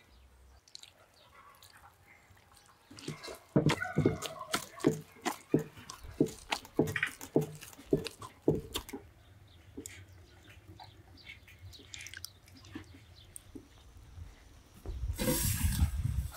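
Hand kneading and squeezing sticky bread dough in an enamel bowl: a run of wet squelches and slaps, about two a second, loudest in the first half, then softer and more scattered. Near the end, a steady hiss of granulated sugar poured into a pan.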